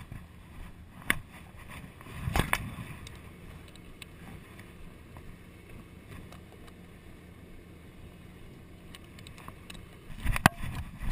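Fire engine's engine running steadily in the background. A sharp knock about a second in, a louder thump and rustle a little later, and a cluster of knocks and clatter near the end from hose and gear being handled close to the microphone.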